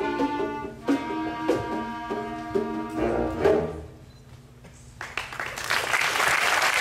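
Middle school concert band playing the final bars, brass and woodwind chords punctuated by percussion hits; the last chord stops about three and a half seconds in. After a short pause, audience applause starts about five seconds in and builds.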